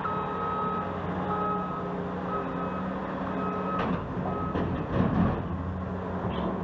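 Backup alarm of a construction vehicle beeping about once a second over its engine running, the beeping stopping about four and a half seconds in. A few clanks follow around five seconds in.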